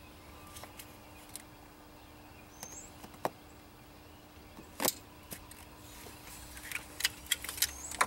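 Scattered small clicks and taps as a metal pick works the lock tabs of plastic ignition coil connectors and unplugs them, with a quick run of clicks near the end. A faint steady hum lies underneath.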